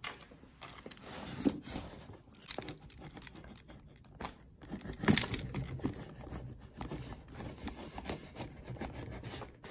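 A bunch of keys jangling as one key is run along the packing tape of a cardboard shipping box to cut it open: irregular scraping and tearing strokes, with a louder one about halfway through.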